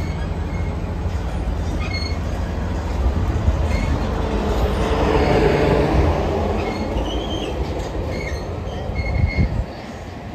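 Passenger train passing on the rails: a steady low rumble with the rolling noise swelling to its loudest about five seconds in and then easing, short high wheel squeals here and there, and the level dropping suddenly near the end.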